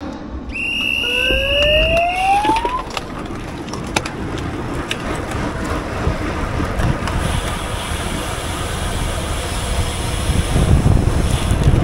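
Wind rushing over a GoPro's microphone with low road rumble, from riding in a bicycle criterium race; a few sharp clicks break through. Near the start a steady high electronic tone sounds for about two seconds, with a rising tone under it.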